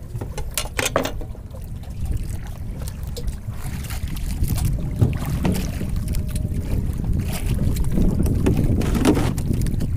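Wind rumbling on the microphone aboard a small fishing boat at sea, with a few brief knocks near the start and again around the middle and near the end.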